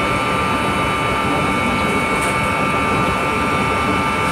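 Large 200 HP electric pump running steadily: an even motor hum and rumble with several steady whining tones over it.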